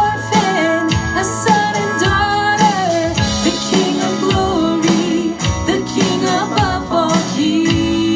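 Worship band music with singing over guitar, keyboards and a steady drum beat, the kick drum landing about once a second.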